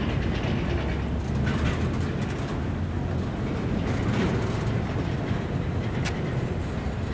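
Empty intermodal well cars of a Norfolk Southern freight train rolling past: a steady low rumble of steel wheels on rail with light rattles, and a sharp click about six seconds in.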